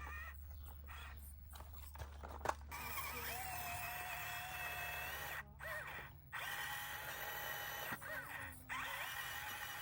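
1/24-scale FMS FCX24M RC crawler's small electric motor and gearbox whining at a steady pitch as it drives. The whine cuts out briefly twice, about five and a half seconds in and near nine seconds. A few sharp clicks and knocks come in the first three seconds.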